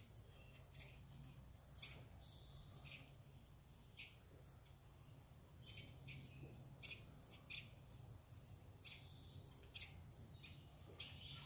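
Squirrels giving short, sharp, high-pitched chirps, irregularly about one a second, a few drawn out into brief squeaks; the loudest comes about halfway through.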